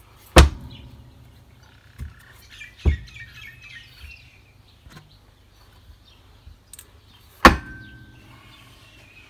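Sharp metal knocks from the Boxford lathe's motor mount and mounting plate being handled: two loud ones about seven seconds apart and a few fainter ones between, over a low steady hum.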